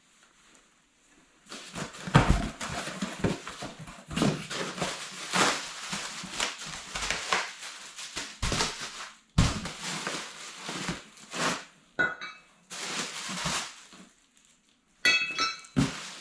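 Cardboard boxes and plastic wrapping rustling and crinkling as boxed suspension parts are unpacked by hand, with knocks and clinks of steel brackets being handled and set down on a concrete floor. The handling noise comes in irregular spells with short pauses.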